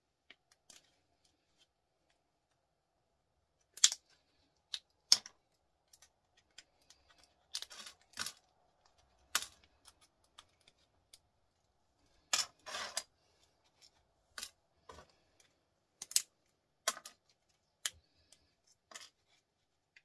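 Irregular sharp clicks and snaps of small plastic microwave micro switches being taken apart by gloved hands, with parts tapping on the metal benchtop; a longer crackle comes about twelve and a half seconds in.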